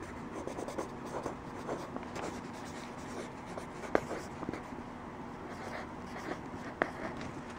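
Handwriting on a paper worksheet: a pen tip scratching steadily across the page on a tabletop, with small ticks as letters are formed and two sharper ticks, about four seconds in and near the end.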